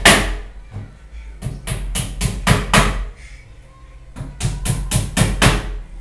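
Two quick runs of sharp knocks, about four a second, five or six strikes in each run, with a short pause between the runs.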